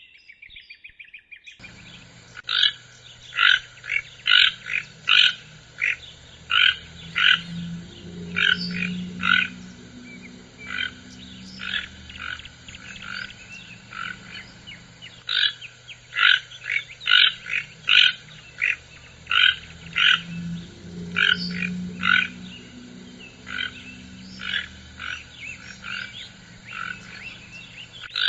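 Toucan calling: a long series of short, croaking yelps, one to two a second, in irregular runs separated by brief pauses.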